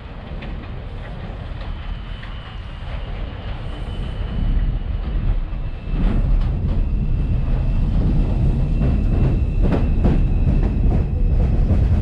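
R142/R142A subway train approaching, getting louder and reaching full volume about six seconds in. Its wheels clack over the rail joints under a steady high whine.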